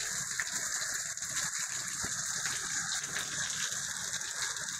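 Constant heavy rain pouring steadily onto brick paving and garden foliage, an even hiss with no distinct events.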